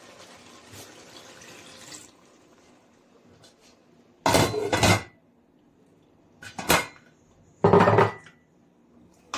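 Cooking pots and utensils clattering in a kitchen: three loud bouts of metal-on-metal knocking and scraping in the second half, after a faint hiss of running water in the first two seconds.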